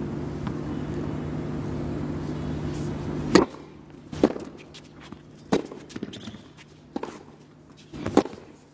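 Tennis racket strings hitting the ball in a baseline rally: five sharp pops about a second and a quarter apart, the first about three and a half seconds in. Before the first shot there is a steady background hum, which stops suddenly with it.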